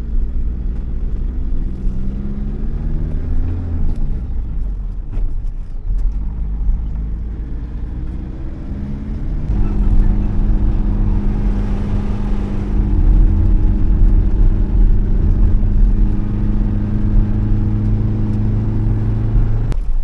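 Car engine and road noise heard from inside the moving vehicle's cabin. The engine note rises a few seconds in, then runs louder and steady from about halfway through.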